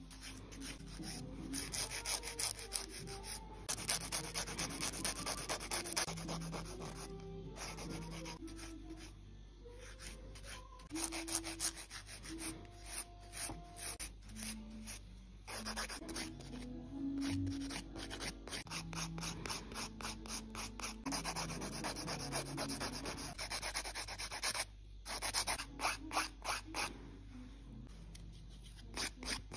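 Hand-held nail file rasping back and forth across a long fingernail in rapid, repeated strokes, with a few brief pauses.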